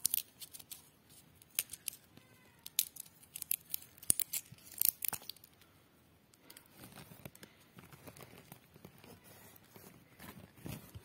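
Dry mung bean pods crackling and snapping as they are handled and split open by hand to free the beans. A run of sharp cracks in the first five seconds gives way to softer crinkling.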